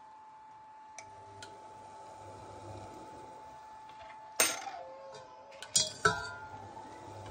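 A metal spoon and kitchen utensils clinking against a ceramic bowl and steel pots: one sharp, ringing clink about halfway through, then two quick clinks a moment later.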